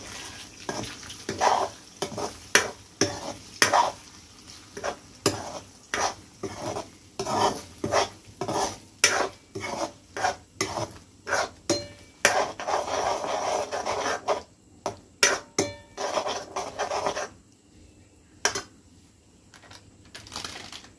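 A metal spatula scraping and knocking against a steel kadhai as eggs are stirred and scrambled into bhurji, with the eggs sizzling in the pan. The strokes are irregular, about one or two a second, and stop near the end.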